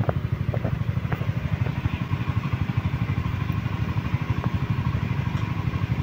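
An engine running steadily at a constant speed, a low, rapid, even chugging pulse, with a few faint clicks over it.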